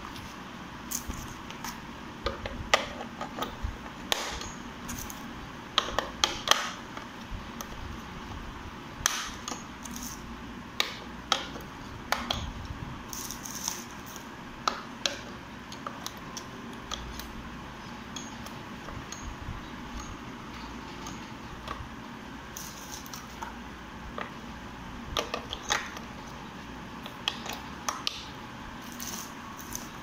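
AA batteries being fitted one by one into the battery compartment of a plastic RC transmitter: irregular sharp clicks and clinks as each cell is pushed into place.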